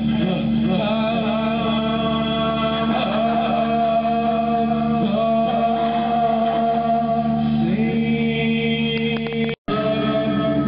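Music with long held vocal notes over a steady drone, broken by a split-second dropout to silence near the end.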